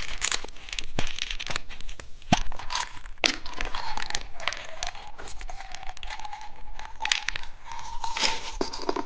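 Plastic candy wrapper being torn open and crinkled: a dense run of short, sharp crackles and rips.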